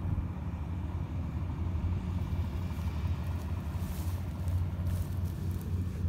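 Combine harvester engine running steadily off in the rice field, a continuous low drone.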